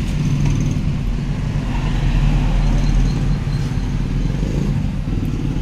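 Steady low rumble of motor-vehicle engines and traffic.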